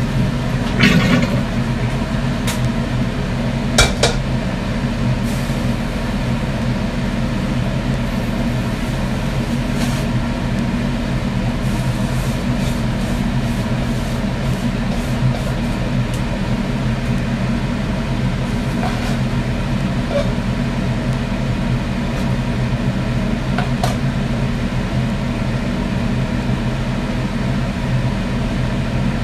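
Kitchen range hood fan running with a steady hum, over which dishes and utensils clink a few times, the sharpest clink about four seconds in.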